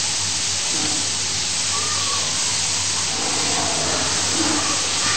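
Steady hiss of an old recording's background noise, with a low electrical hum underneath.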